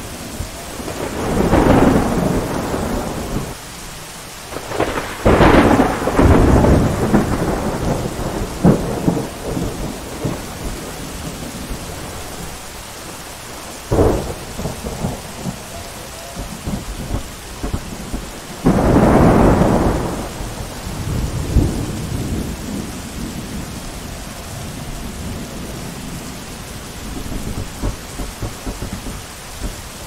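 Thunderstorm: steady rain with repeated thunder. Rolling rumbles come about 2, 6 and 19 seconds in, with shorter sharp cracks around 5 and 14 seconds.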